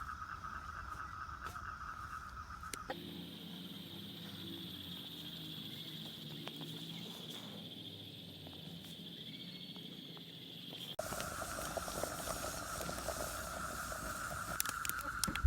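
Night insects trilling steadily in a high, even drone that jumps abruptly in pitch twice, about three seconds in and again about eleven seconds in.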